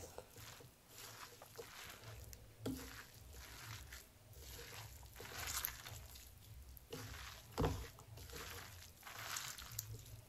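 Kofta batter of grated bottle gourd and gram flour being mixed in a bowl: soft, irregular squishing and scraping, with one sharper knock about seven and a half seconds in.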